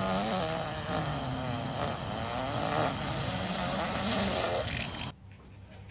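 A long, loud, buzzing fart that wavers in pitch, starting abruptly and cutting off about five seconds in.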